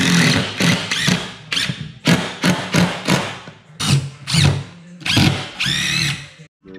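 Cordless impact driver driving screws through hockey-stick shafts into a plywood table top, in a string of short trigger bursts. Near the end comes one longer run with a rising whine.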